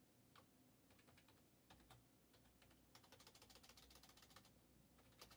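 Faint typing on a computer keyboard: a few scattered keystrokes, then a quick run of keystrokes about three seconds in, and one more click near the end.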